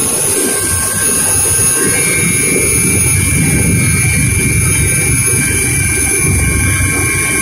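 Helicopter turbine engines and rotor heard from inside the cabin, just after landing: a loud, steady drone with several steady high whines over it, one more whine coming in about two seconds in.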